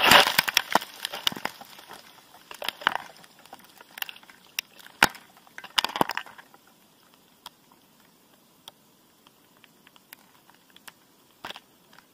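Crash down through leafy vegetation: a hard impact, then crunching and cracking of twigs and rustling that die away after about six seconds, leaving only scattered faint clicks.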